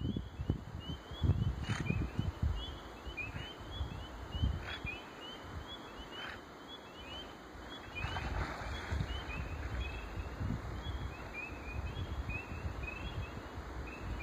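A steady chorus of short, rising peeps, several a second, typical of spring peepers calling from a swamp in spring. Under it, uneven low rumbling of wind on the phone's microphone.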